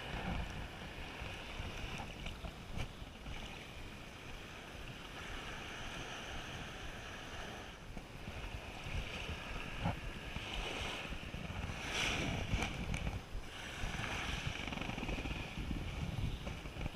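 Wind buffeting the microphone over the wash of surf on a beach, the hiss of the waves swelling louder in the second half.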